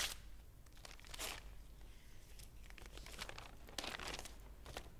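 Paper envelope and letter handled by hand: several short, faint rustles and crinkles as the envelope is torn open and the sheet of paper unfolded.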